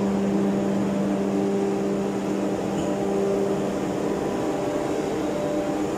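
Steady machinery hum in a ship's engine room: a low drone with a few steady higher tones over an even background noise.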